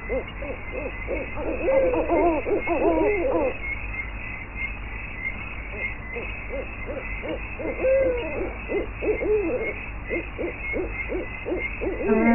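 Night-time animal calls: quick runs of short hoots, with longer wavering calls about two seconds in and again about eight seconds in.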